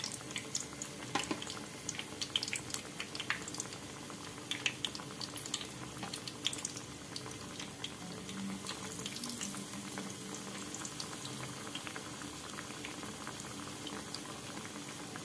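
Besan-battered stuffed chapati pieces deep-frying in hot oil: a steady bubbling sizzle with scattered small pops and crackles. It swells a little about eight seconds in, as another battered piece goes into the oil.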